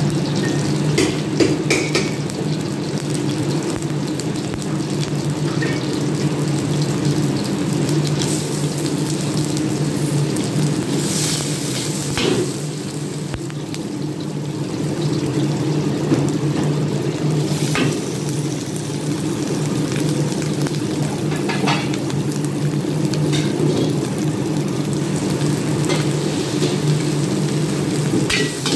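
Stir-frying in a wok: food sizzling while a metal wok ladle scrapes and clanks against the pan every few seconds, over the steady low roar of a high-heat gas wok burner.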